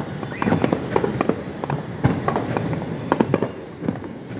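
Fireworks going off in quick, irregular succession: many sharp bangs and pops over a continuous rumble.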